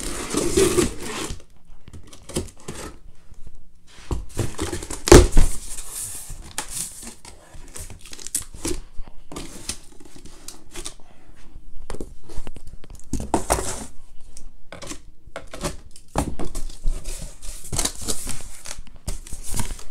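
Packing tape on a cardboard box being slit and torn open, then plastic bags crinkling as the packed contents are handled, in irregular rustles and rips. A loud sharp sound stands out about five seconds in.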